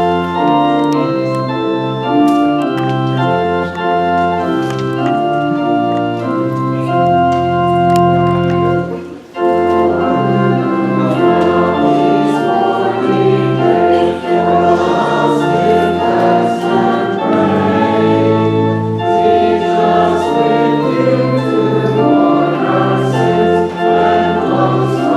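Church organ music closing the service, held chords moving from one to the next; it breaks off briefly about nine seconds in and resumes fuller, with a choir singing along.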